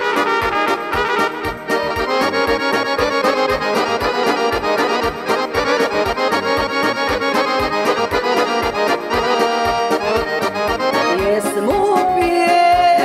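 Live Balkan folk band music played instrumentally: a piano accordion leads over electric guitar and keyboards, with an even, pulsing bass beat. About eleven seconds in, another melodic line with sliding notes comes in over the band.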